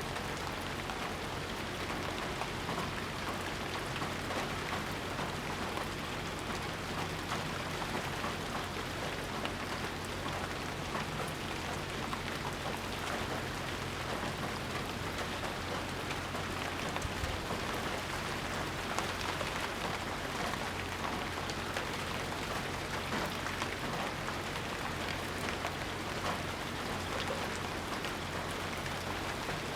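Steady rainfall: a dense, even patter, with individual drops ticking through it.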